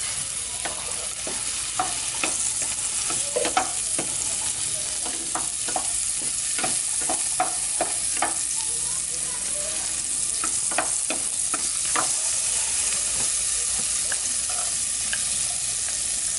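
Garlic sizzling in melted margarine in a stainless steel saucepan: a steady hiss. Frequent clicks and knocks come from the spatula stirring against the pan.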